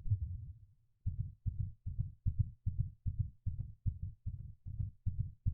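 Heartbeat sound beating fast, in quick, even low thumps about two and a half a second after a brief pause. The sped-up heartbeat marks the timer running out.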